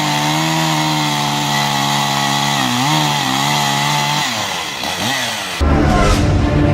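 Stihl chainsaw running at high revs with a steady engine note that dips briefly near the three-second mark, then falls away toward idle about four seconds in. Music with heavy drums comes in near the end.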